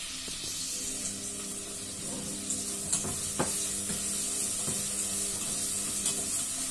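Shrimp and garlic sizzling in hot oil in a metal pot, stirred with a spatula that clicks sharply against the pot a few times.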